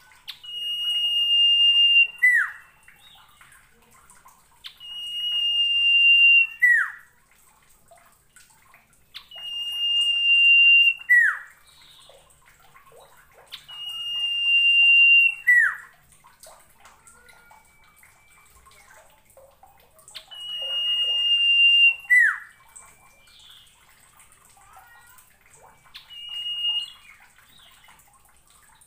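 Common iora (sirtu/cipoh) singing: a long, steady whistle that swells in volume and ends in a quick downward slur. The phrase repeats every few seconds, six times, the last one short, with faint small calls in between.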